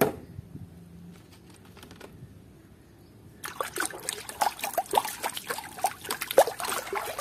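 A hand sloshing and rummaging in muddy water in a plastic basin. It is fairly quiet at first, then a busy run of irregular splashes and drips starts about halfway in.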